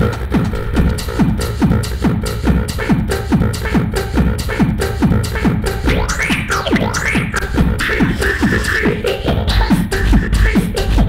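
Live beatboxing layered through looping and effects gear into an electronic-style groove: a steady beat of deep, falling-pitch kicks, about three a second. About halfway through, a new vocal layer of rising and falling pitch glides comes in over the beat.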